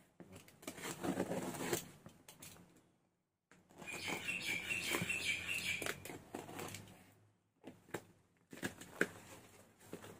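Scissors cutting and slitting packing tape on a cardboard box, with the cardboard and bubble wrap rustling as the box is opened. The scraping and crackling come in spells with short quiet gaps, the longest spell about four seconds in.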